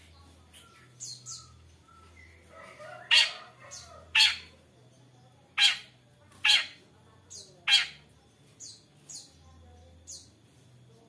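Long-tailed shrike singing: five loud, sharp, piercing notes about a second apart in the middle, set among fainter, thinner high chirps.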